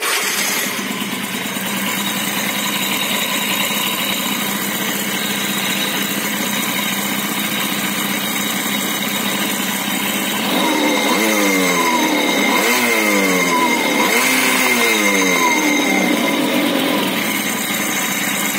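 Scooter engine, variator removed, starting up and idling, then revved up and down three times about ten seconds in before settling back to idle. It runs without the crunching, scraping bearing noise heard earlier.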